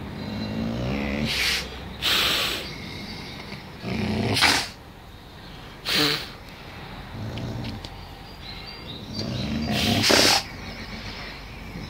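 A wolf at close range giving several low growling rumbles, broken by short sharp huffs or snorts.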